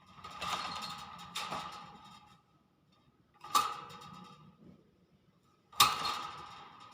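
Hill myna giving a series of hissing bursts, each cutting in suddenly and fading over about a second, the loudest near the end.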